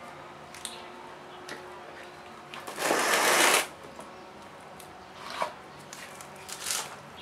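Dry woven fibreglass cloth rustling as a gloved hand handles it. One loud rustle lasts about a second near the middle, with a few short, soft rustles before and after.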